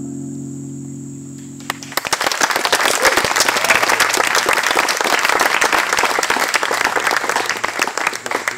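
The band's final held chord fades out, and about two seconds in the audience breaks into applause that keeps going.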